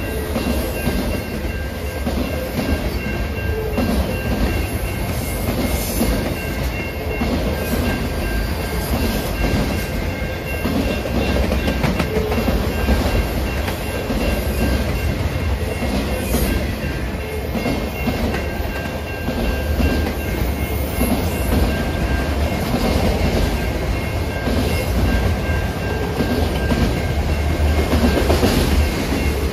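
Autorack freight cars rolling past: a steady rumble of steel wheels on rail, with the clickety-clack of wheels knocking over rail joints.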